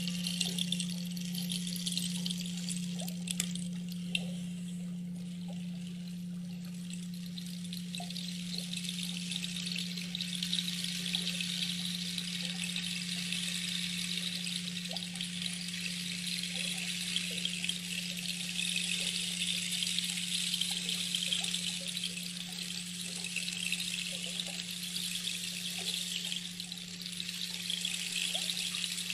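Water flowing steadily, like a stream, over a continuous low hum.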